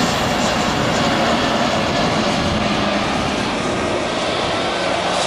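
Engine noise of a private jet landing: a loud, steady rush with a faint whine in it, easing slightly toward the end.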